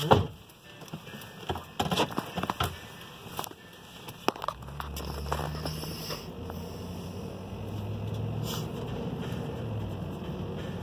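Scattered clicks and knocks for the first few seconds. Then, from about four seconds in, a vehicle engine runs steadily with a low hum that slowly grows louder.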